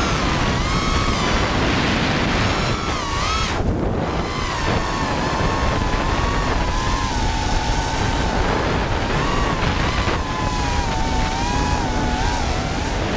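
Brushless motors and 5-inch props of an FPV racing quad whining, the pitch rising and falling constantly with throttle, over wind rushing past the onboard camera. About four seconds in the throttle is briefly chopped and the whine drops away before climbing again.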